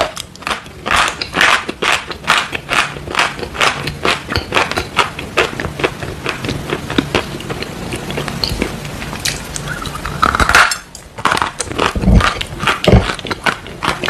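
Close-miked chewing of chalk: rapid, dry crunching many times a second. There is a short break just before eleven seconds in, then two duller, heavier crunches near the end.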